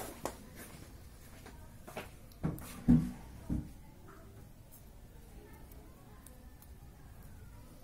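A few light knocks and thumps in a small room, the loudest about three seconds in, then low steady room noise.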